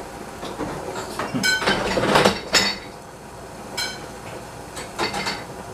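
Dishes and cutlery clinking: about four sharp, ringing clinks roughly a second apart, with a short clatter between the first two.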